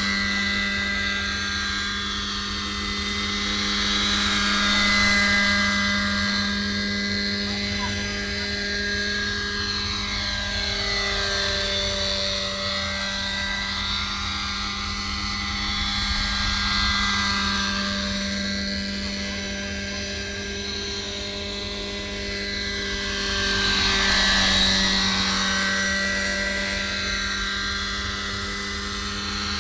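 Radio-controlled scale model helicopter in flight, its engine and rotor holding a steady pitched drone. The pitch dips and swells as it passes close, once around the middle and again near the end.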